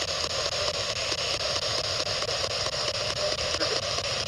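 Ghost box (spirit box) radio sweeping through stations: a steady static hiss broken by rapid, evenly spaced clicks as it scans.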